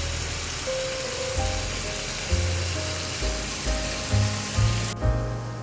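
Onions, peppers and mushrooms sizzling on a hot griddle, an even hiss that cuts off suddenly near the end, under background music with a melody and bass line.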